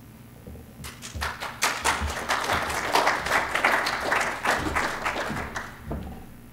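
Audience applauding: a burst of many hands clapping that starts about a second in and dies away near the end.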